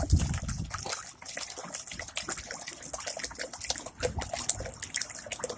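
Water trickling and splashing as a chicken waterer is filled with fresh water, a steady patter of small irregular splashes.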